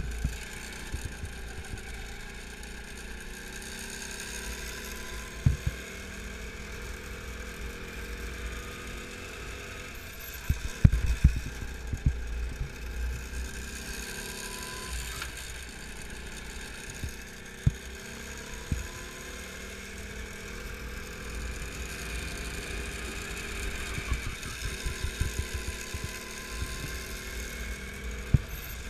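Kart engine heard from an onboard camera, its revs rising and falling again and again through the laps. Low thumps and knocks break through now and then, with a cluster about eleven seconds in.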